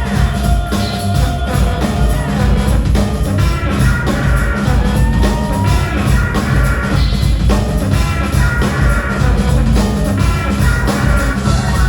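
Live rock band playing an instrumental passage without vocals, drum kit and bass at the front with a steady beat.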